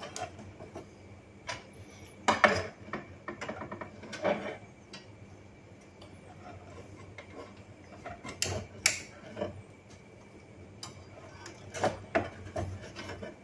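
Plastic parts of a Canon G3060 ink-tank printer being handled and pushed into place inside its open body: scattered clicks and knocks of plastic on plastic, the sharpest about two and a half seconds in, with further clusters near the middle and the end.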